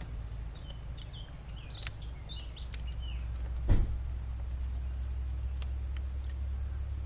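Scattered small metallic clicks and one sharp knock about halfway through, from a wrench and parts being handled on an outboard engine, over a steady low rumble. Birds chirp in the first half.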